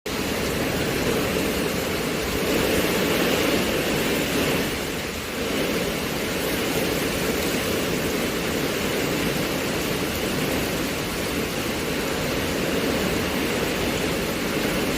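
Wind-driven rain: a steady rushing hiss of rain and wind that swells slightly about three seconds in and dips briefly around five seconds in.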